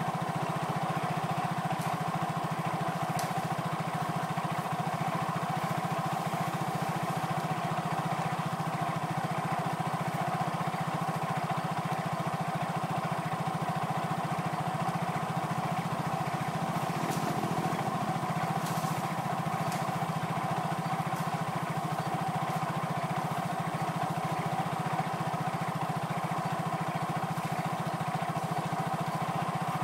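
A small engine running steadily at a constant speed, an even drone that does not change.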